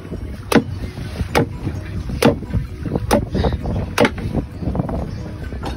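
Small fishing boat under way: a steady low rumble of motor and wind, broken by sharp knocks about once a second.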